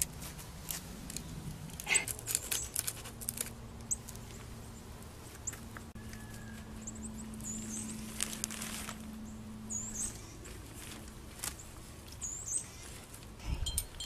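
Handling noises: rustling and soft clicks of rubber-gloved hands working a plastic sheet and a wet Portland-cement-coated birdhouse, with a soft low thump near the end as the birdhouse is set down. A few short, high bird chirps come now and then in the background.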